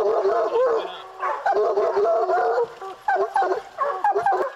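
A pack of bear hounds baying together, many drawn-out voices overlapping in a continuous chorus. The chorus breaks into more separate bays in the second half. This is the pack hot on a bear.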